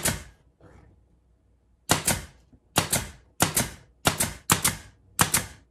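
Senco 23-gauge micro pin nailer firing pin nails into glued wood. There is a sharp snap at the very start, then after a pause about six quick clacks a little over half a second apart.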